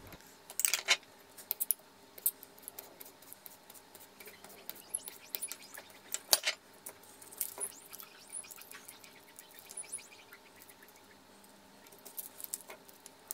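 Scattered small clicks and taps of kitchen prep work: a knife clinking inside a glass jar of peperoni, tapping on a thin plastic cutting board, and garlic cloves being handled and peeled. One sharper knock comes about six seconds in.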